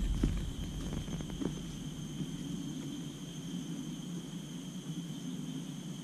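Footsteps crunching on dry leaf litter, fading out over the first second or two as the walker moves away. Under them is a steady high-pitched drone of forest insects.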